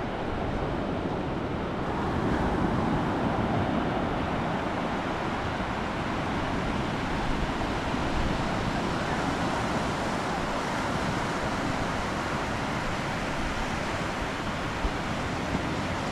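Steady rush of wind across the microphone mixed with surf washing onto a sandy beach, an even noise with no distinct events.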